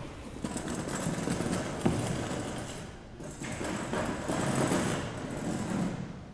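Metal-legged chair pushed across a stage floor, its feet scraping and juddering in two long drags with a short break about three seconds in, and a sharp tick during the first drag.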